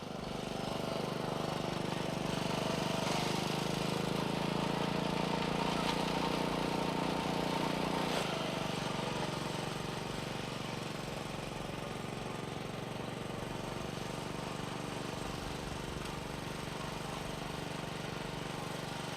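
An engine running steadily with a fast, even pulsing. It eases down slightly in pitch and loudness about eight seconds in.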